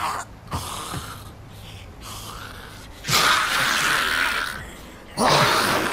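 Harsh, raspy gasping breaths of a zombie: a few short gasps at first, then a long rasping exhale about three seconds in and another near the end.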